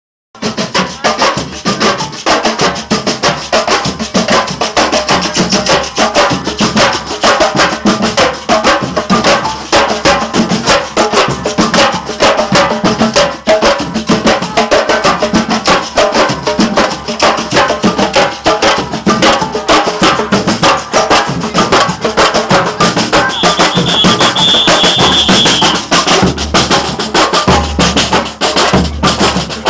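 Percussion band playing a dense batucada-style drum rhythm with shakers and drums. A high held tone sounds for about two seconds about three-quarters of the way through.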